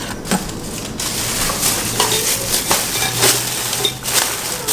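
Crackly rustling with many quick small clicks, from dry, papery material being handled close up.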